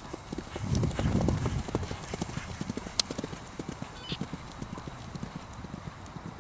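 A horse's hooves galloping on grass turf, a quick run of dull hoofbeats, with a louder, heavier patch about a second in as it lands over a log jump. A single sharp click comes about three seconds in.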